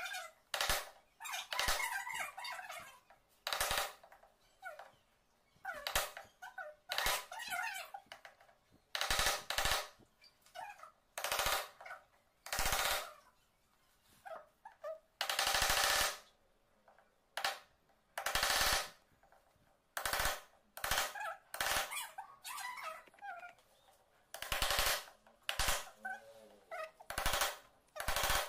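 Hammer striking a wood chisel to cut a lock mortise into the edge of a wooden door. The knocks come in irregular runs with short pauses, and a few longer strokes last about a second each.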